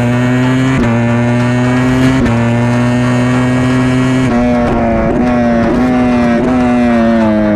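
Ducati Panigale V4R WorldSBK superbike's V4 engine at high revs, heard from an onboard microphone. The note climbs under acceleration and drops back at an upshift about a second in and again about two seconds in. Past the middle the deep part of the sound falls away and the note changes in several quick steps about every half second.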